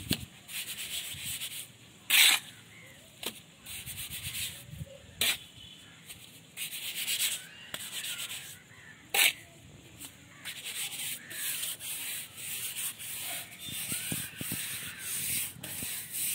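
Steel mason's trowel scraping and smoothing a bed of cement mortar on a concrete floor, spread about 10 mm thick for a course of bricks. Repeated rasping strokes, with a few sharp knocks of the trowel near 2, 5 and 9 seconds in; from about 10 seconds in the scraping runs almost without a break.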